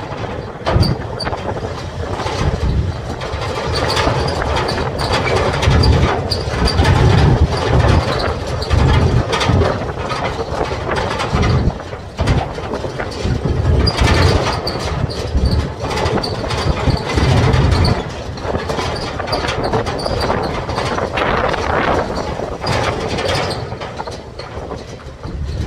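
Riding in the open back of a small utility truck: steady engine and road noise, with the metal body and rails rattling over bumps throughout.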